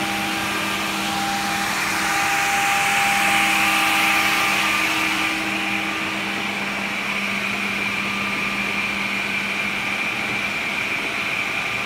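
Automatic edge banding machine running, giving a steady motor whir and hiss with several steady hums, some of which drop away about halfway through.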